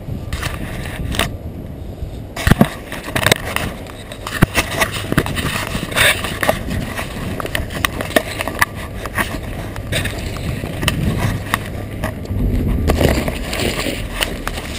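Rustling, scraping and a rapid run of knocks and clicks as a GoPro camera is handled and pushed through leafy branches, starting about two seconds in.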